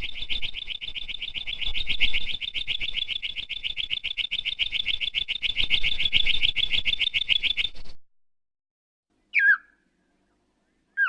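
Reconstructed small-dinosaur call made from songbird recordings: a long, rapid, dry trill of evenly repeated high chip notes that runs for about eight seconds and stops suddenly. After a pause comes a single short downward-slurred call, and another call follows near the end.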